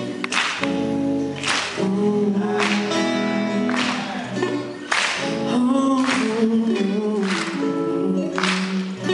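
A man singing a slow song live, with acoustic guitar accompaniment. A sharp, bright strum accent lands about once a second.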